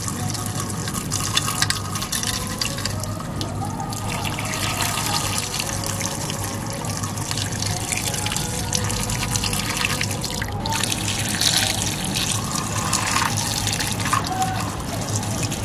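A thin jet of water spraying steadily onto a toy tractor, splashing off its body and wheels.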